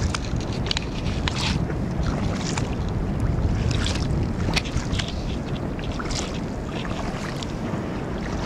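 Steady low wind rumble on the microphone over water lapping against a boat's hull, with small irregular splashes and crackles throughout.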